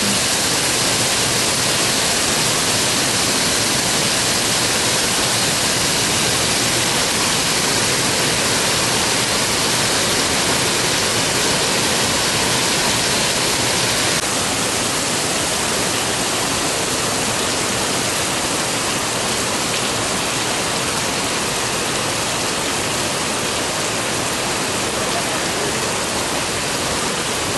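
Torrential downpour: heavy rain falling on flooded pavement and standing water, a loud even hiss that drops slightly about halfway through.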